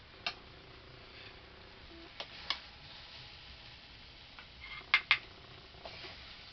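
Metal spatula clinking and scraping against a metal wok and plate as stir-fried water spinach is dished out. There are a few sharp clinks, the loudest a close pair about five seconds in.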